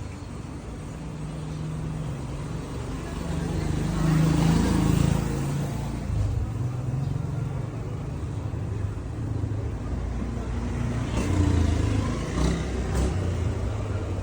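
Motor vehicle engines running on a nearby road, with one passing louder about four seconds in and another near the end.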